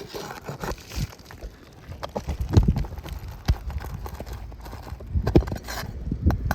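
Irregular knocks, taps and scrapes of hand work on an asphalt shingle roof, shingles and nails being pried and handled, with the loudest thuds about two and a half seconds in and again past five seconds.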